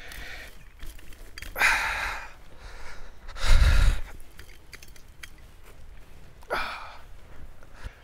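A man breathing out heavily three times after exertion, the middle breath the longest and loudest.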